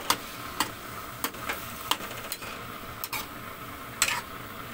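Chayote and chicken breast being stir-fried in a stainless steel wok: a stirring utensil scrapes and clinks against the pan every half second or so over a steady sizzle. The sharpest clinks come at the start and about four seconds in.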